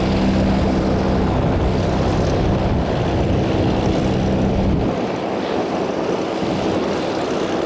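Airbus Beluga XL's Rolls-Royce Trent 700 turbofan engines running at low power as the aircraft taxis after landing: a steady jet rush with a low hum. The deepest rumble falls away about five seconds in.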